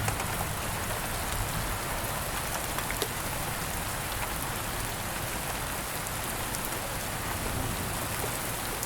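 Steady rain falling in a calm thunderstorm, an even hiss with scattered sharp drop ticks, one clear tick about three seconds in, and a faint low rumble near the start.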